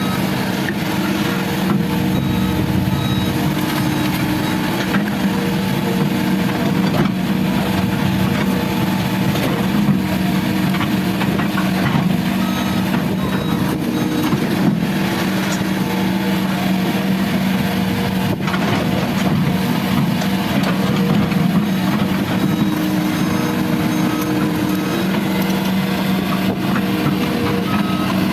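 Heavy diesel excavator engine running steadily under work, with a few faint knocks. A repeating warning beep sounds near the start and again near the end.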